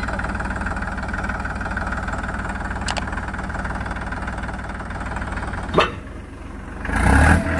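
Diesel tractor engine running steadily at idle, with a sharp knock just before six seconds in and a louder burst of noise near the end.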